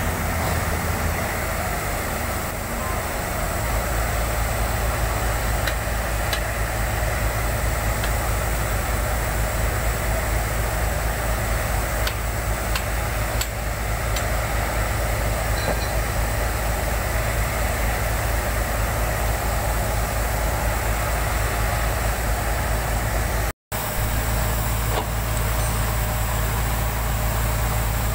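Truck-mounted concrete pump's diesel engine running steadily, a constant low drone with a few faint clicks over it. It breaks off for an instant about two-thirds of the way through.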